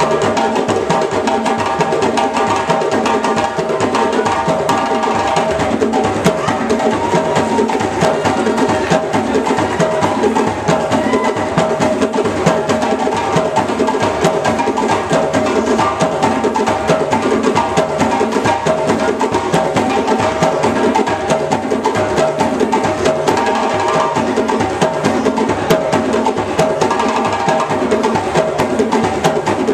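West African drum ensemble: several djembes and other hand drums played together in a dense, steady rhythm.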